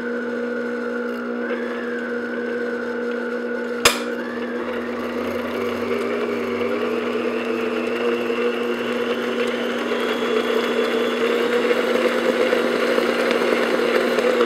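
Electric stand mixer running at low speed, its beater mixing a cocoa-coffee liquid into chocolate cake batter in a glass bowl: a steady motor hum, with a single sharp click about four seconds in.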